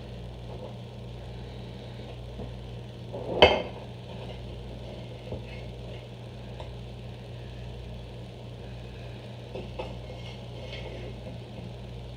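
Kitchen clatter: one sharp clink of dishware about three and a half seconds in, then a few lighter knocks, over a steady low hum.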